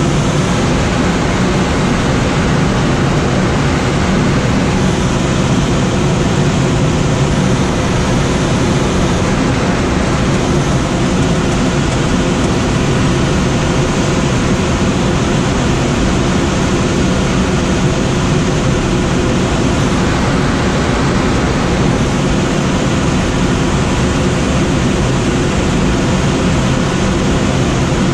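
Steady rush of air past a Schweizer SGS 2-32 glider in unpowered soaring flight. The wind noise is loud and unbroken, with a low rumble.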